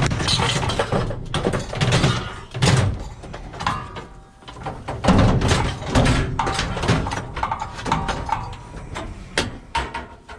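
Scrap metal being handled and loaded into a van: repeated clanks and bangs, some followed by a short metallic ring.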